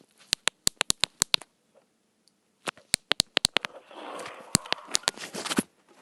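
A quick run of about eight sharp clicks, a pause, another run of clicks, then a stretch of rustling with more clicks mixed in, stopping shortly before the end.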